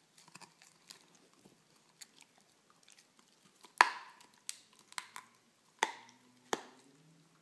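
Beagle chewing on a bone held in a person's hand: scattered sharp crunches of teeth on bone, sparse at first, with the loudest bites a little before four seconds in, near six and just after six and a half seconds.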